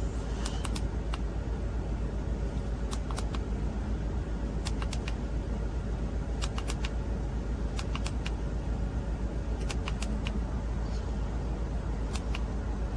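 Small sharp clicks, often two in quick succession, repeating every second or two over a steady low hum and rumble.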